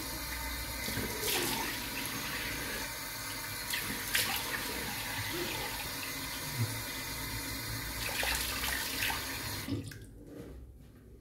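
Bathroom tap running into a sink with splashes as a face is rinsed, washing the alum off after a shave. The water cuts off near the end.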